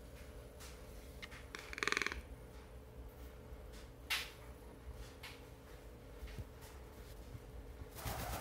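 Pet toco toucan giving a short rattling croak about two seconds in, then a rush of wingbeats near the end as it takes off.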